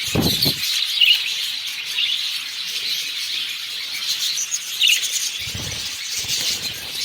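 Budgerigars chirping and chattering continuously with short high calls. Two brief low rumbles break in, one at the start and one near the end.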